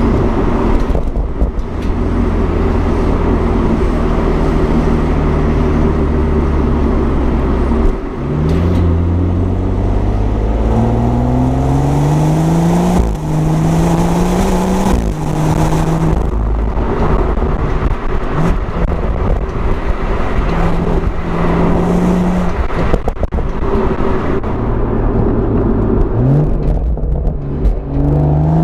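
BMW M140i's turbocharged three-litre straight-six and exhaust, first running at a steady drone for about eight seconds. The engine then accelerates hard through the gears, its pitch rising, dropping at each upshift and rising again several times.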